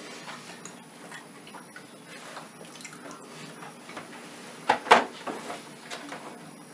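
Quiet eating sounds of people chewing and handling cheesecake slices: scattered small clicks and soft ticks. About five seconds in comes a short, louder noisy sound, two pulses close together.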